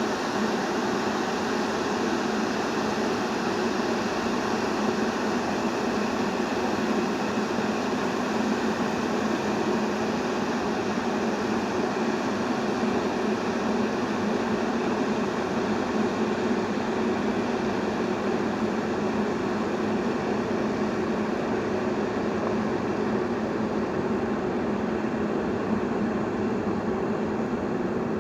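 Electric kettle boiling water: a steady, even hiss and bubbling rumble that holds at one level throughout.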